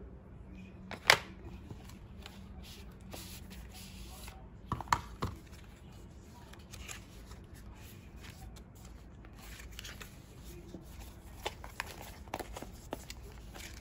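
Hands handling an Apple Watch and its white paperboard box: scattered sharp taps and clicks of stiff cardboard pieces, the loudest about a second in, a small cluster around five seconds and a few more near the end.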